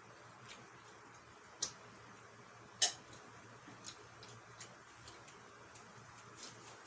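Light, scattered clicks and taps of eating at a table, with two sharper clicks about one and a half and three seconds in.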